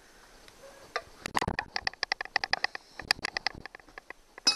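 Socket wrench ratchet clicking in quick, even runs as bolts are backed out of an outboard's midsection, then one sharp metal clink near the end.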